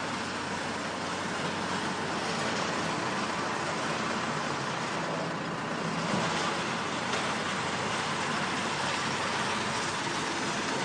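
Engine running steadily, most likely the engine of the crane that lifts the concrete blocks. It runs under a wide, even hiss of outdoor site noise.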